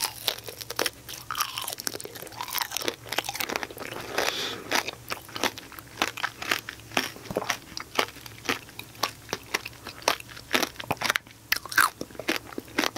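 Two people biting into and chewing strawberry tanghulu, the thin hard sugar shell cracking and crunching in many quick sharp crackles between the teeth.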